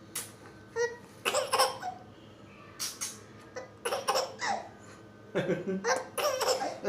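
A four-month-old baby laughing in repeated short bursts, the laughter broken up by hiccups.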